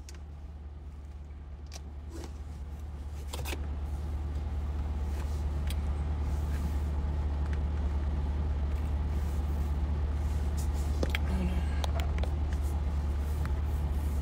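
Steady low hum of a running car heard inside the cabin, growing louder over the first few seconds and then holding steady, with a few faint clicks.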